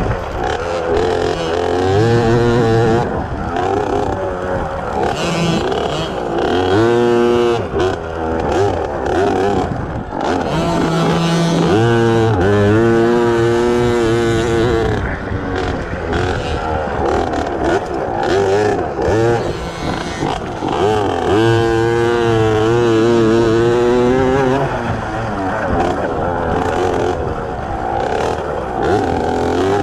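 Small 50 cc two-stroke kids' enduro bike engines revving hard, the pitch rising and falling over and over as the throttle is worked, with the strongest revving runs near the middle and about three-quarters of the way through.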